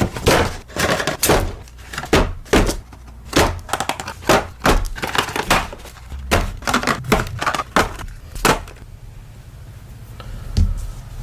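A run of sharp taps and knocks, irregular at about two or three a second, stopping about nine seconds in, with two more single knocks near the end.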